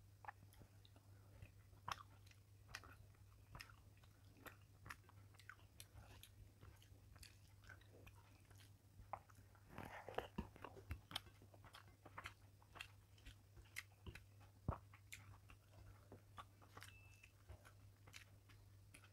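Faint close-miked eating sounds: fingers working rice and fish in gravy on a plate, with small clicks throughout. Chewing comes in a denser stretch as a mouthful goes in about halfway through. A steady low hum runs underneath.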